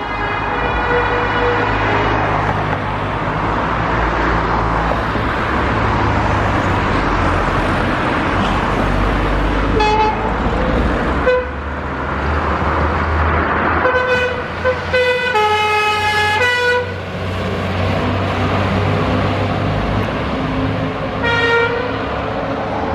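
French fire engines pulling out with their engines running as a steady low rumble. Their two-tone warning siren sounds in short blasts around ten seconds in, again in a run of alternating high and low notes from about fourteen to seventeen seconds, and once more near the end.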